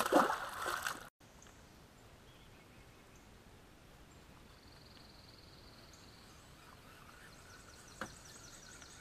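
A loud noisy burst in the first second cuts off abruptly. Quiet open-air background follows, with a high buzzing trill for about a second and a half in the middle, faint high chirps near the end and one click.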